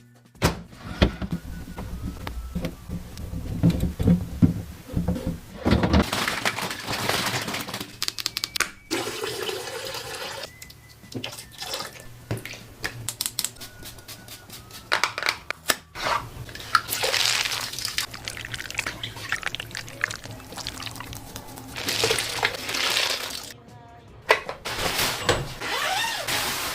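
A string of short cleaning clips: water running and splashing, cut together over background music.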